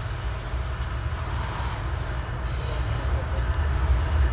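Diesel locomotives at the head of a loaded CSX coal train approaching, a deep engine rumble that grows steadily louder as they draw near.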